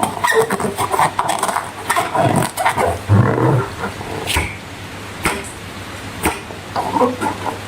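Slime being squished and stretched by hand, making irregular wet, sticky clicks and crackles. In the second half, three sharp snaps come about a second apart.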